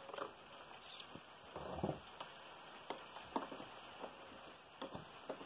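Faint, irregular clicks and knocks of hands handling a Homelite XL chainsaw and a metal funnel being set into its chain-oil filler, with a longer scuffing rustle about one and a half seconds in.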